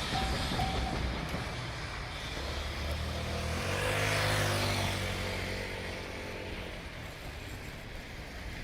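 A road vehicle driving past close by, its engine pitch falling as it goes by, loudest about four seconds in.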